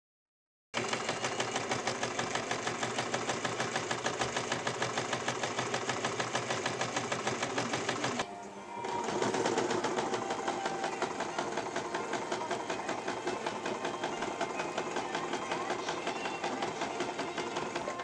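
Electric household sewing machine stitching through heavy fabric in a fast, even run of needle strokes. It starts abruptly under a second in, eases off briefly about eight seconds in, then runs on again.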